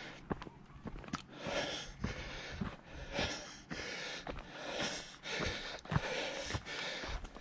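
A hiker's breathing, in and out in a steady rhythm about once a second, close to the microphone, with the knock of footsteps on a stony dirt trail.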